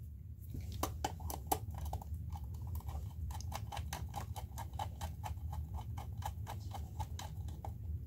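Quick, even clicking, about five clicks a second, from a wire being fastened into a DIN-rail screw terminal block.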